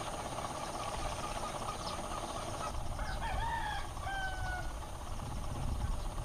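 A rooster crowing once about halfway through, a rising, bending phrase that ends on a held level note, over a steady low rumble and hiss of background noise.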